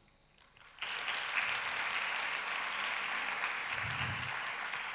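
Audience applause. It starts suddenly about a second in, holds steady, and begins to fade near the end.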